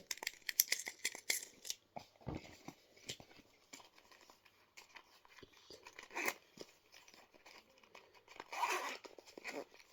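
Small plastic fidget toys being handled: quick irregular clicks and rustling, busiest in the first two seconds, with a louder rustle shortly before the end.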